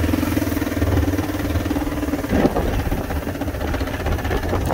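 Off-road vehicle's engine running steadily at low speed. About halfway through, one steady tone drops out, with a brief rattle.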